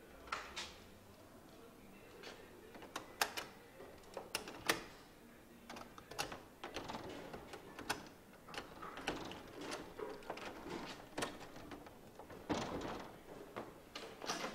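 Irregular sharp clicks, knocks and rattles of a man working at a shuttered wooden door, its latch and handle clattering.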